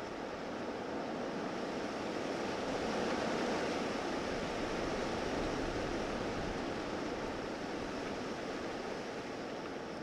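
Steady rushing of sea surf, swelling gently over the first few seconds and then slowly easing.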